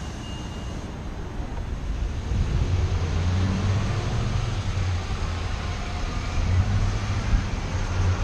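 Street ambience: a steady low rumble of traffic, which grows louder about two seconds in.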